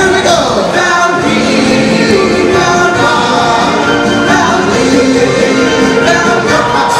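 Several voices singing together over musical accompaniment: a stage-show song, loud and continuous.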